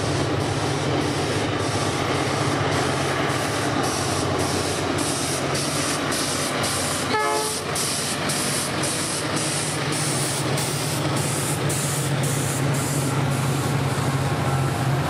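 Diesel freight locomotives, a GE C30-7 leading GT22CU-M1 units, running past under power with a steady deep engine drone and a regular pulsing about twice a second. A short pitched tone sounds about seven seconds in.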